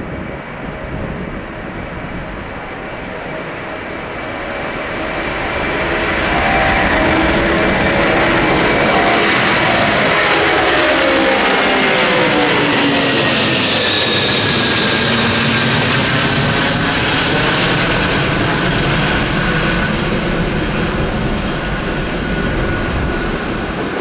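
A large airplane's engines passing close by: the noise builds over the first several seconds and then holds loud, with a high whine that falls in pitch as the aircraft goes past.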